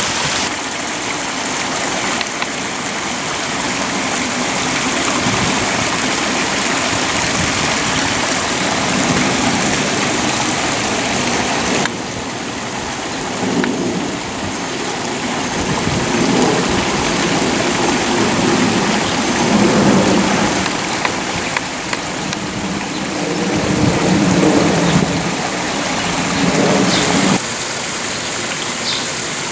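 Water running over rocks in a garden stream: a steady rushing, with lower gurgles coming and going in the second half. The sound shifts abruptly twice.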